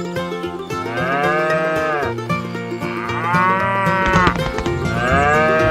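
Cow mooing three times, each call rising and then falling in pitch, over steady background music.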